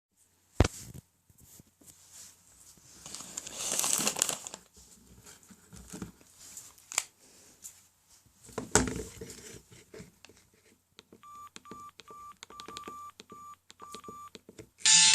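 Handling noise from a Samsung SGH-S400i mobile phone: a sharp click, some rustling and a few more clicks. Then come about seven short keypad beeps, all at one pitch, over the last few seconds as its buttons are pressed.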